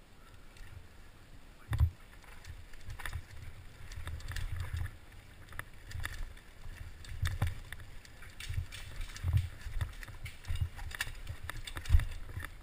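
Downhill mountain bike, a Giant Faith 2, rattling and clattering over a rocky trail, heard from a helmet camera: wind rumbling on the microphone with frequent sharp clicks and knocks. Two heavy thumps come, one about two seconds in and a louder one near the end.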